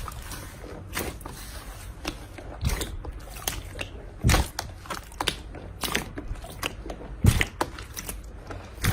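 Slime being squeezed and pressed by hand, giving irregular crackles and pops, with a few heavier squelching pops among them, the loudest about seven seconds in.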